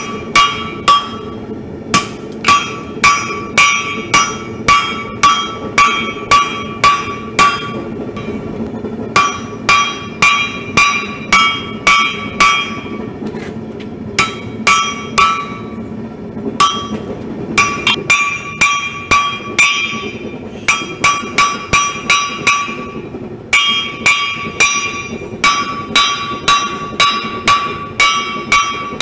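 Hand hammer blows on a red-hot railroad spike on a steel anvil, forging it flat into a knife blade. The blows come about two or three a second in runs broken by short pauses, each one ringing the anvil.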